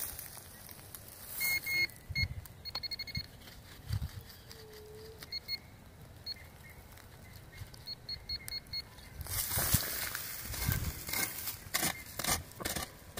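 Metal detector giving short, faint high beeps, some in quick runs of three or four, as the coil passes over a buried target. Near the end comes a louder stretch of scraping and knocks in the soil as the spot is dug into.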